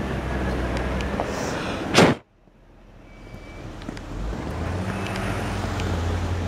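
Outdoor street noise on a snowy night: a low rumble of a car driving past on the road. A single sharp click about two seconds in, after which the sound drops out and slowly builds back up.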